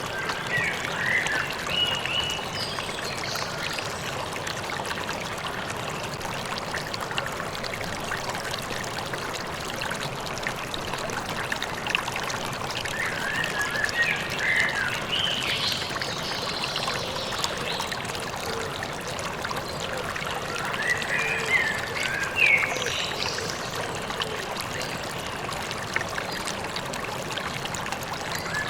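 A flowing stream runs steadily, with birds chirping in short bursts of song a few times over it, most around the start, midway and about two-thirds through.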